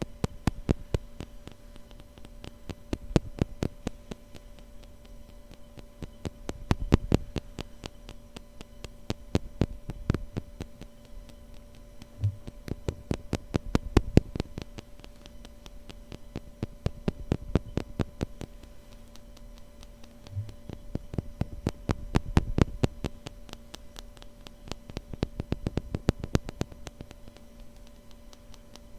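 Tapping on a wooden spoon: quick runs of light, sharp taps that come in bursts every few seconds, over a faint steady hum.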